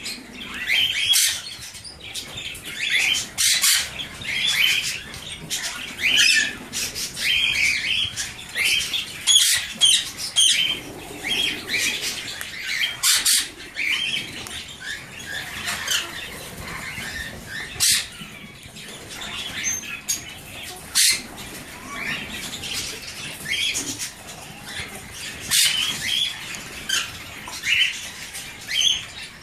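Young Alexandrine parakeets giving many short chirps and squawks, mixed with frequent sharp clicks and taps.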